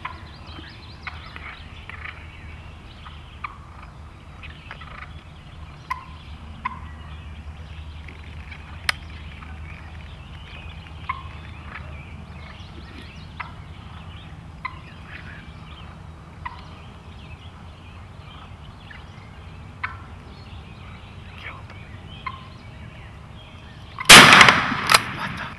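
Wild turkeys making short, sharp calls scattered every second or two. About 24 seconds in comes a single very loud shotgun blast, ringing on for about a second.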